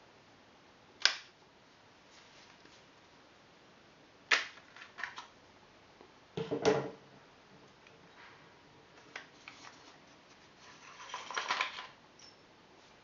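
Sharp plastic and metal clicks from the parts of a Silverback SRS airsoft sniper rifle being handled as its buttpad is taken off. There is a heavier knock about halfway through and a longer scraping rustle near the end.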